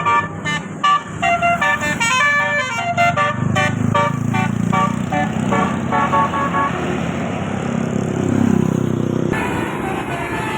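A bus's basuri 'telolet' multi-tone musical horn playing a quick tune of short notes that change pitch several times a second. The tune stops about six seconds in, leaving the low rumble of the passing heavy vehicle's engine.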